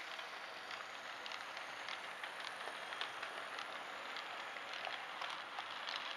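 Model railway freight train of Network Rail IOA wagons rolling along the track: a steady light hiss of wheels on rail with many small, irregular clicks.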